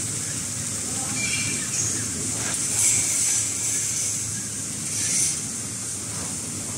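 Automatic toilet paper and kitchen towel roll film-bag wrapping machine running steadily, with a short hiss every couple of seconds as it cycles.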